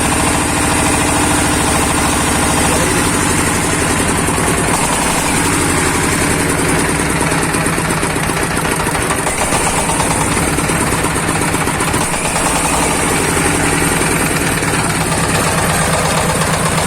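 A 24 hp diesel engine running steadily, with a rapid, even chugging.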